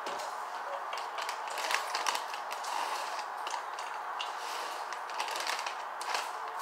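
Plastic snack bag of in-shell sunflower seeds crinkling and crackling as it is tipped and handled, with seeds rattling out into a hand, in quick irregular clicks over a steady background hiss.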